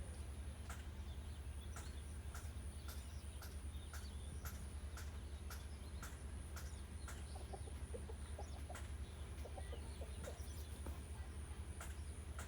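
Domestic hens clucking in short calls, mostly in the second half, over a steady low hum, with a sharp click repeating about twice a second throughout.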